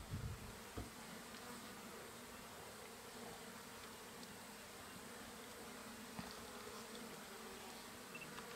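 Faint, steady buzzing of flies around an elephant carcass, with an occasional soft tick.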